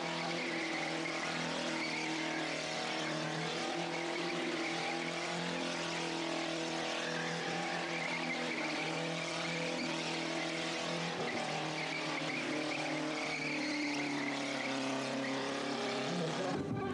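Older two-door BMW 3 Series doing donuts: its engine held at high revs while the rear tyres spin and squeal on the tarmac, a steady mix of engine note and tyre noise.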